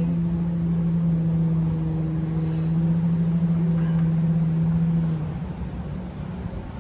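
An engine running with a steady low hum that drops away about five seconds in.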